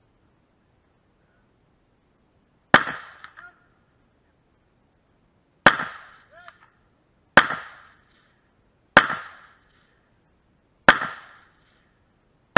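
AR-15 style rifle firing single shots at an uneven pace, five sharp cracks each followed by a short echo, with a sixth right at the end.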